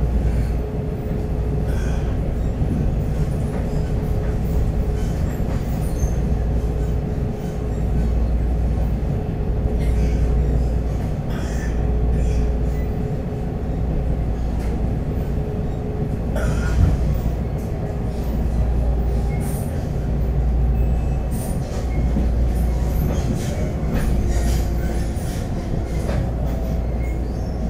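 Taiwan Railways EMU500 electric commuter train running along the line: a steady low rumble of wheels on rail that swells and eases every few seconds, with a faint steady whine and scattered clicks and knocks from the track.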